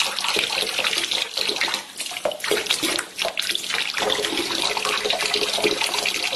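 Water pouring in a steady stream into a glass jar and spilling over into a plastic tub, splashing, with two short dips about two and three seconds in.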